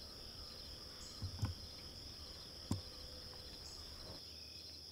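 Evening insect chorus, a steady high-pitched drone with a fast pulsing under it, with a few brief soft knocks about a second and a half in and a sharper one near three seconds.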